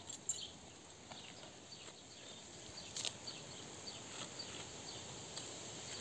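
Faint, scattered ticks and crackles of a goat grazing in tall grass, cropping and chewing stems, with a couple of sharper clicks near the start and about three seconds in.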